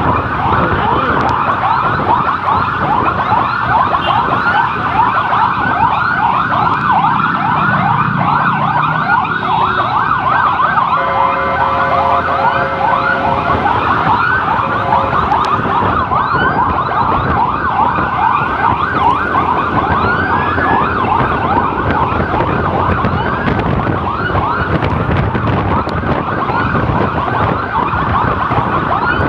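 Electronic emergency siren wailing in a fast yelp, its pitch sweeping up over and over several times a second. A horn sounds steadily for about four seconds in the middle, over the siren.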